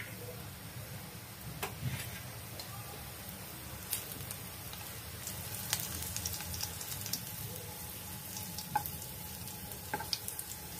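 Crushed garlic cloves sizzling in hot oil in a non-stick kadhai as they brown for the tempering, with a steel ladle stirring them and clicking against the pan now and then.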